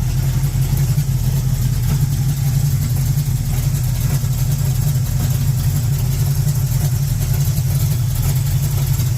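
Small-block Chevy V8 of a 1967 El Camino idling steadily.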